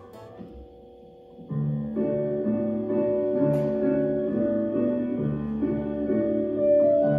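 Piano accompaniment. It is faint for the first second and a half, then a steady accompaniment pattern begins and carries on.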